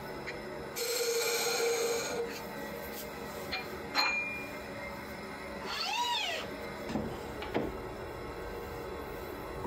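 Wood lathe turning a small spindle, with a short hissing cut about a second in, a sharp tool click around four seconds in, and a few light knocks later. Near the middle comes a brief rising-and-falling squeal-like call.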